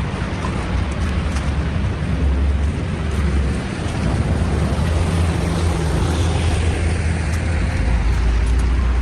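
Street traffic with a steady low rumble; about six seconds in, a vehicle passes close and its sound falls in pitch as it goes by.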